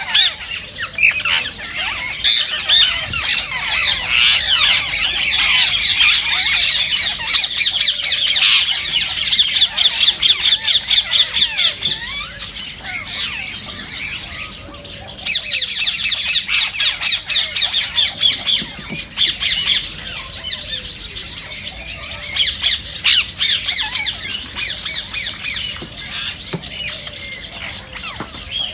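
A flock of rose-ringed (Indian ringneck) parakeets screeching: rapid, repeated shrill calls that run on without a break. They swell into two loud bouts, about a third of the way in and again just past the middle.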